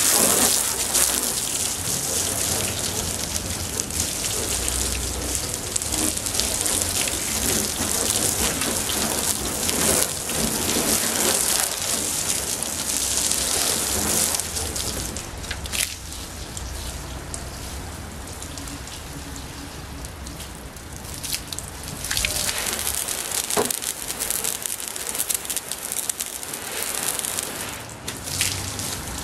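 Water from a hand-held hose splashing steadily onto a car's bonnet, a dense patter like rain on a hard surface. The splashing eases a little in the middle and picks up again.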